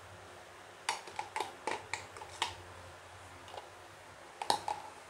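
A metal fork clicking and scraping against a small plastic cup and a bowl while the marinade is scraped out over the chicken: a quick run of light knocks about a second in, and a few more near the end.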